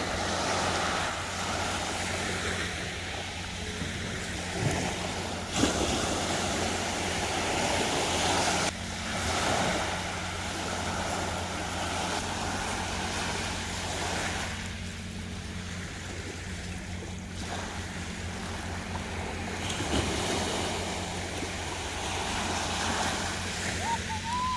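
Sea waves breaking and washing on the shore, a continuous rushing that swells and ebbs every few seconds, with wind on the microphone and a steady low hum underneath.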